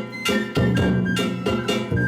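Music with a steady beat: regular percussive strokes about twice a second over held pitched notes.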